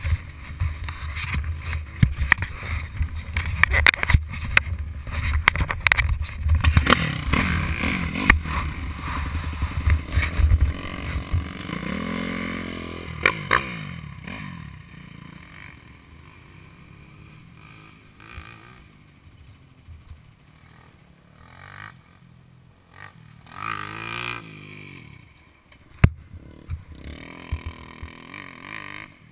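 Dirt bike engines running, loud and rumbling for about the first ten seconds, then quieter, with scattered clicks and knocks. A bike revs up and back down about twelve seconds in and again near twenty-four seconds.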